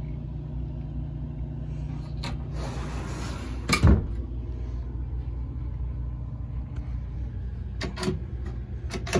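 Wooden cabinet doors being worked over a steady low hum: a closet door is swung shut with a loud knock about four seconds in, and near the end a few sharp clicks as a tilt-out hamper's catch is released.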